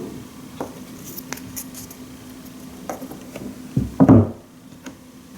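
Marbles rolling and clacking along a wooden marble run, with scattered light clicks early on and a cluster of louder wooden knocks and rattles about four seconds in. A faint steady hum sits underneath.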